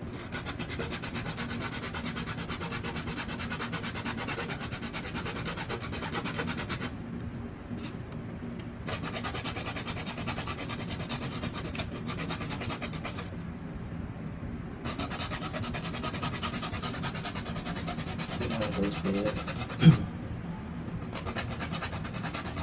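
A bare hacksaw blade, held by hand, sawing through a PPR plastic water pipe with rapid rasping strokes that ease off twice for a moment. About twenty seconds in there is a single sharp knock.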